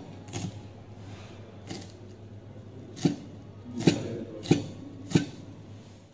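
Kitchen knife chopping spring onions on a cutting board: about six separate knife strikes on the board, irregularly spaced about a second apart, the later ones louder.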